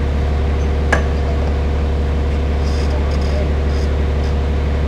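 Engine idling steadily, with a single sharp metallic clink about a second in.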